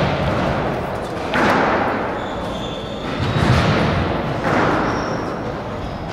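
Squash rally: the ball is struck by racquets and hits the walls with several hollow, echoing thuds, the loudest about a second in, three seconds in and four and a half seconds in. A few short, high shoe squeaks come off the court floor.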